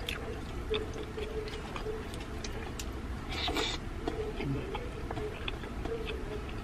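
Mouth noises of eating rice and smoked fish by hand from a stainless steel bowl: scattered small clicks of chewing and lip smacking, with a short breathy noise about three and a half seconds in.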